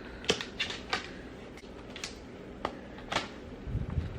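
An iPad and its trifold case being handled: scattered light clicks and taps, with a soft low thump near the end.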